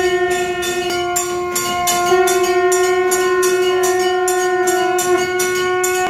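A continuous horn-like tone with many overtones, stepping up slightly in pitch about two seconds in, over faint metallic strikes about three a second.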